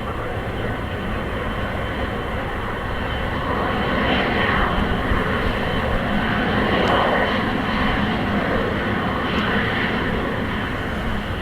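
Airliner engines passing, a broad rushing noise that swells to a peak about halfway through and then eases off.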